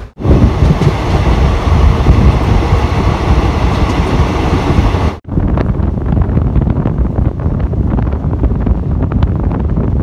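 Express passenger train running along the track, heard from on board: a steady rumble of the coach's wheels and running gear, with wind buffeting the microphone. The sound breaks off for an instant just over five seconds in, then carries on in the same way.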